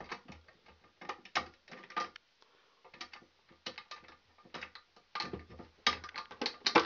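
Irregular metallic clicks and scrapes of hand work at the terminals of a pull-out electrical disconnect, as a wire is worked into its terminal and the screw turned, loudest near the end.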